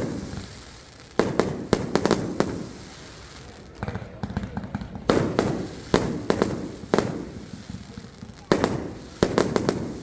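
Aerial fireworks bursting in volleys of sharp bangs, several in quick succession, each group trailing off in a rumbling echo. The volleys come about three times, with a fainter patter of small bangs in between.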